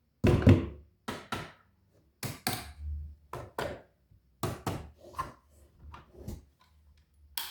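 A series of knocks, mostly in quick pairs about a second apart, growing weaker toward the end.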